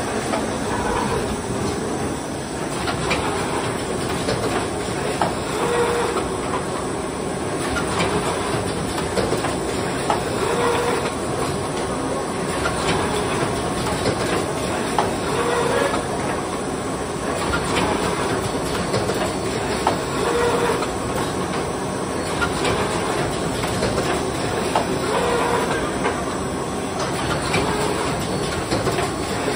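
Automatic rigid box making line running: steady machine noise with hissing air and irregular clicks and clacks from its pneumatic and conveyor mechanisms, and a brief tone that comes back about every five seconds.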